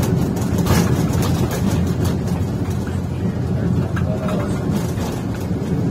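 Coach driving along a road, heard from inside the driver's cab: a steady low rumble of engine and road noise with scattered rattles.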